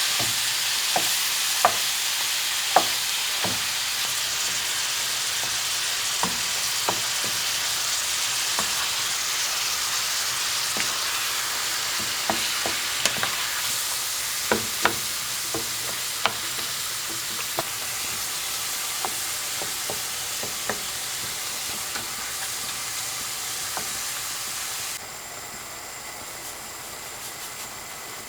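Food frying in oil in a pan: a steady sizzle, with a utensil stirring and clicking against the pan now and then. About 25 seconds in, the sizzle drops suddenly to a quieter level.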